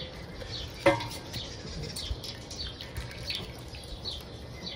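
Water dripping and running off a boiled cloth-wrapped pudding back into its pot as it is lifted out, while small birds chirp repeatedly in the background. One brief louder sound about a second in.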